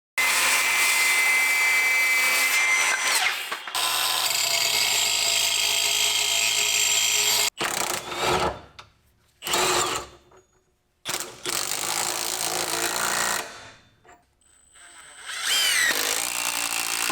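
Power tools running in a string of separate runs: two long steady runs, then several short bursts with quiet gaps between them. A tool spins up with a rising whine near the end.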